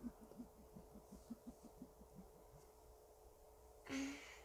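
Faint, quick soft pulses, about five a second for the first two and a half seconds, from a ribbed plastic monkey noodle fidget tube being stretched, over a low steady hum, with one brief louder sound about four seconds in.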